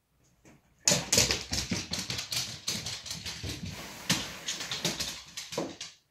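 Dogs' claws clicking and scrabbling on a laminate floor: a dense, irregular run of sharp clicks and scuffs that starts about a second in.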